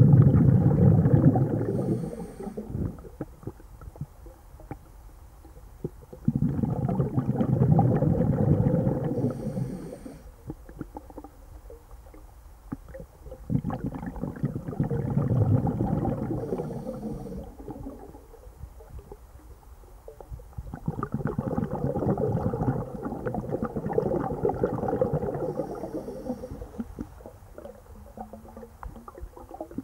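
A scuba diver's breathing heard underwater: exhaled bubbles from the regulator gurgle and rumble for three to four seconds at a time, four times, about seven seconds apart.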